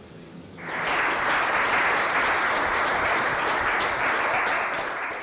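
Audience applauding, starting just under a second in and keeping up a steady clatter of claps.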